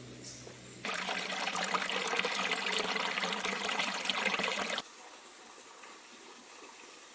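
A low steady engine hum that cuts off under a second in, replaced abruptly by about four seconds of loud, crackly rushing-water noise, which itself cuts off suddenly to a faint hiss.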